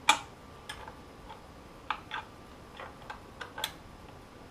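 About ten sharp metallic clicks and taps at uneven spacing, the loudest right at the start, from hand tools working on a dirt bike's rear axle and chain adjusters as they are tightened.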